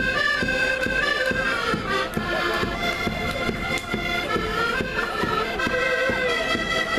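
A traditional Portuguese folk street band playing: a reedy wind melody of held, stepping notes over steady drumbeats.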